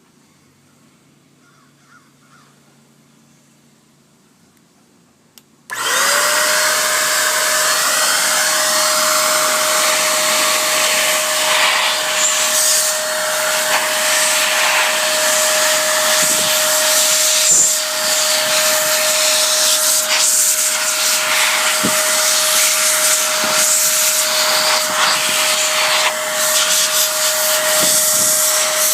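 A powerful electric blower motor switches on about six seconds in, spins up within a moment and runs with a steady whine over loud rushing air.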